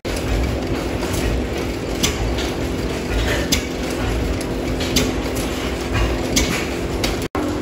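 Belt-driven pump jack working a water pump, its mechanism clanking with a sharp click about every one and a half seconds, over the steady drone of old stationary engines running.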